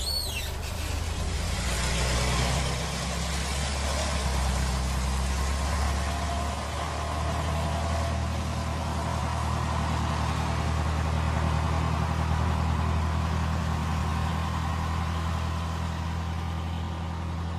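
Old city bus engine running with a steady low drone as the bus drives on.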